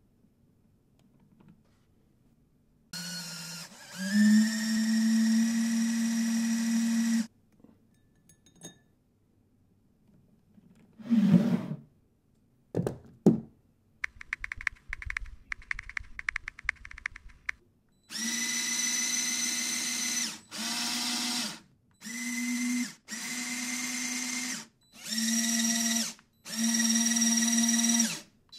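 Lego Technic Powered Up Large motors driving small homemade peristaltic pumps: a steady whine in repeated runs of one to three seconds, switching on and off as the hydraulic cylinders are worked, after one longer run of about four seconds.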